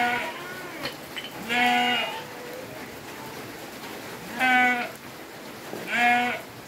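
Goat bleating: four separate calls, each about half a second long.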